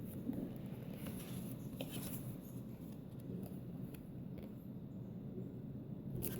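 Paper pages and card flaps of a lift-the-flap book being handled and turned, with short rustles and clicks and a louder crackle near the end, and a French bulldog snorting in the background.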